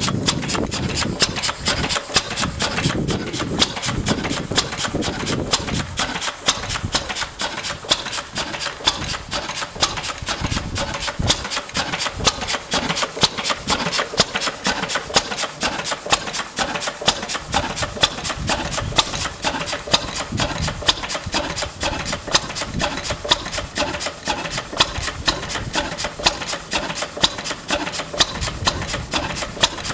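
Small Lister stationary engine running steadily: a rapid, even mechanical clatter with louder beats standing out at a regular pace.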